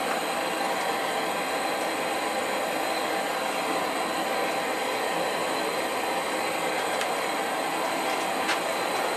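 Propane hand-torch burner firing into a small firebrick forge, giving a steady, even hiss of burning gas.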